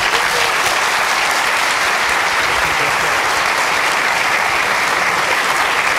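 Audience applauding the end of a talk: steady clapping that breaks out all at once.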